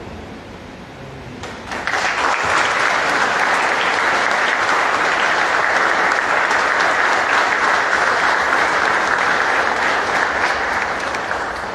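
Audience applauding, a dense, even clapping that starts about two seconds in, holds steady, and fades out near the end.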